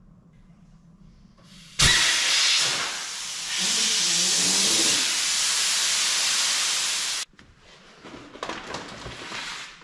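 Compressed air hissing loudly out of a pressure-pot sandblaster, starting about two seconds in and cut off sharply after about five seconds, as when a valve is snapped shut.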